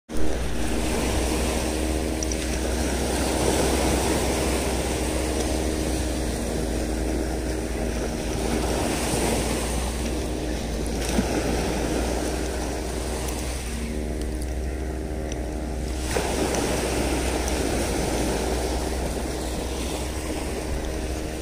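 Shimano Sedona spinning reel being cranked steadily to retrieve the line, its gears giving a steady whirring hum, over surf washing on the shore.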